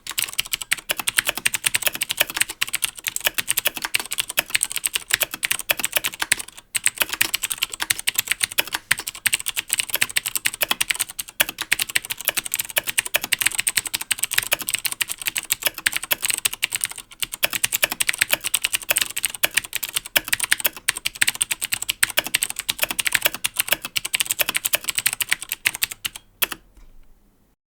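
Fast typing on a Razer BlackWidow Ultimate mechanical keyboard with Cherry MX Blue switches: a dense, steady stream of sharp key clicks, with brief breaks about every five seconds, stopping suddenly near the end.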